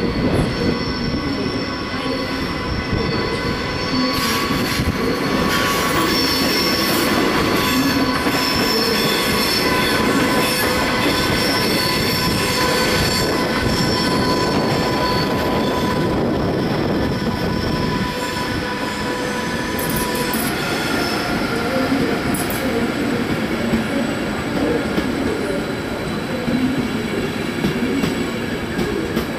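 Locomotive-hauled passenger train with a DB class 101 electric locomotive rolling slowly through curved station track, its wheels squealing against the rails in several high, steady tones. The squeal dies away about two thirds of the way through, leaving the rumble and occasional clacks of the coaches' wheels over the rail joints and points.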